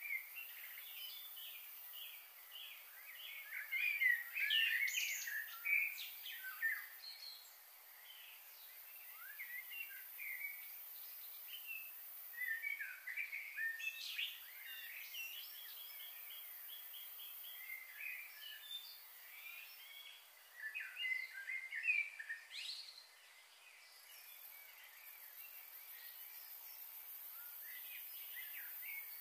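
Small birds chirping and calling in quick short notes, in several busy bursts, over a faint steady hiss.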